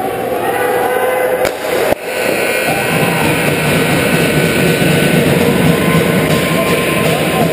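Ice rink's horn sounding about two seconds in and holding on over loud rink noise, signalling the end of the game. A sharp knock comes just before it.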